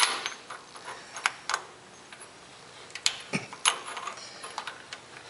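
A series of light metal clinks and knocks at irregular intervals with quiet gaps between, from tools and a loosened hydraulic fitting being handled by hand.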